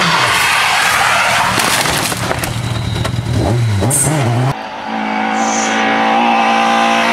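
Rally car engines at speed on a tarmac stage. A Peugeot 106 rally car revs hard, with a run of knocks and clatter as it goes off against a wooden barrier. After a sudden cut a little over halfway, another rally car approaches with a steady, slowly rising engine note.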